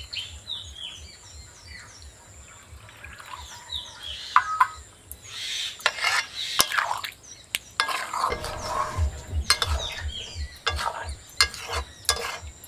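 A metal spatula stirring a wet chicken curry in an iron kadai, scraping the pan and knocking against it with sharp clicks, over a light sizzle. Birds chirp in the first few seconds.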